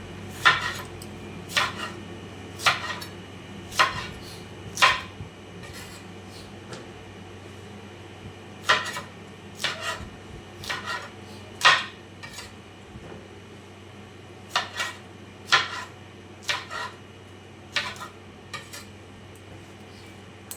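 Kitchen knife cutting vegetables on a cutting board: sharp knocks of the blade striking the board, single strokes about a second apart, in three runs with short pauses between.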